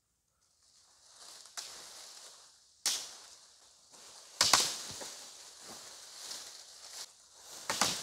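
Dry leaves and leafy branches rustling and crackling as they are pulled off a brush pile and tossed, with sudden loud crunches about three seconds in, about halfway (the loudest), and near the end.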